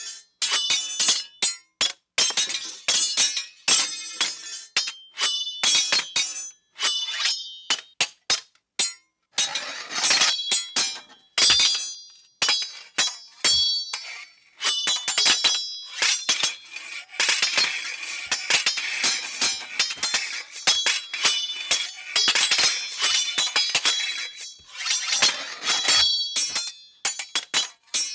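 Sword sound effects in quick succession: steel blade hits, slashes and slides, many of them ringing high, with a few longer rings between the short strikes.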